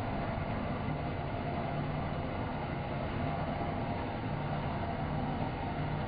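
Horizontal metal-cutting band saw running steadily, its blade cutting through a bundle of steel rectangular tubing, with a steady low motor hum under the cutting noise.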